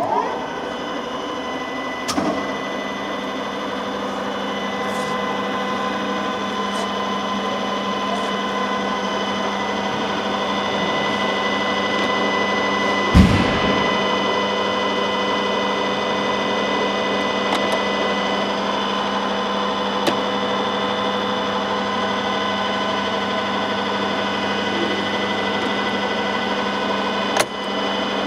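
Cazeneuve HB 575 centre lathe switched on and running: a steady mechanical whine made of many steady tones. A few light clicks and one heavier knock about halfway through.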